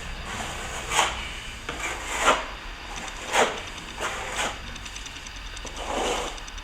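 A hand scraper scraping back a patch of partly set cornice cement on a plastered wall. It makes about five separate rasping strokes.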